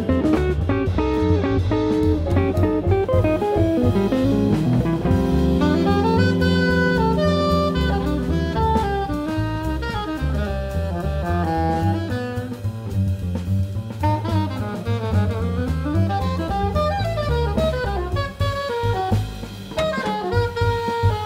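Small jazz combo playing an uptempo tune: upright bass and drum kit keep time while the lead passes from an electric guitar at the start to an alto saxophone a few seconds in.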